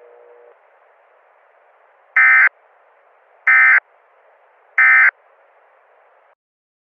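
Three short, loud bursts of EAS digital data tones, the SAME end-of-message code that closes the alert, about 1.3 seconds apart. They sound over a faint radio hiss that cuts off near the end.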